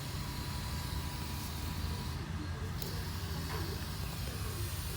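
Toyota Camry engine running steadily, a low hum under an even hiss.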